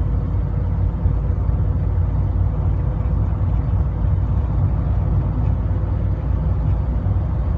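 Steady car cabin drone at highway speed: engine and road rumble with a faint steady hum, from an engine with a rod knock that is getting worse.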